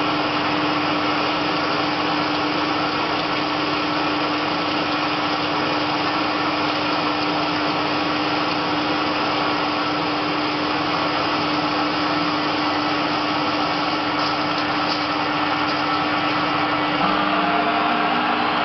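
CNC lathe turning a metal workpiece under flood coolant. The spindle drive runs with a constant low tone under a steady wash of coolant spray and cutting noise.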